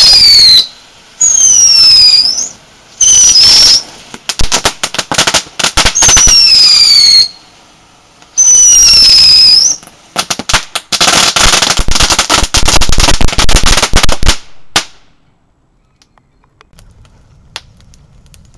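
Small whistling ground-spinner fireworks spinning and spitting sparks on concrete: five loud whistles of one to two seconds each, mostly sliding down in pitch, with sharp crackling between them. About ten seconds in comes a dense run of crackling for some four seconds, then it stops.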